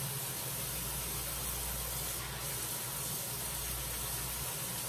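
Kitchen faucet running steadily into a sink while a potato is washed and scrubbed by hand under the stream.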